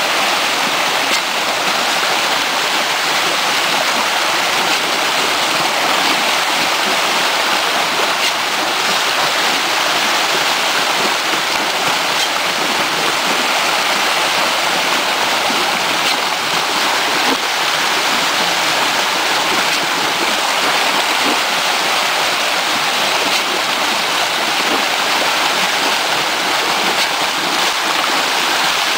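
Rainbow trout thrashing at the surface in a feeding frenzy: a dense, steady splashing and churning of water.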